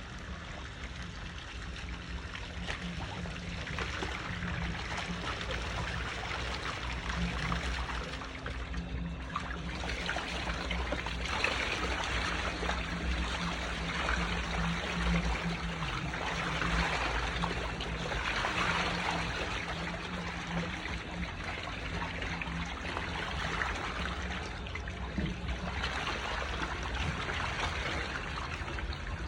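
Water trickling steadily, swelling and easing a little, over a low steady hum.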